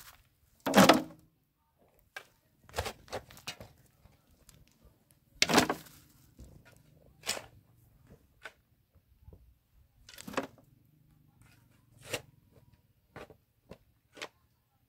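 A long-handled hoe chopping into and scraping a packed dirt floor: about nine irregular strokes, roughly one to two seconds apart. The loudest come about a second in and just before the middle.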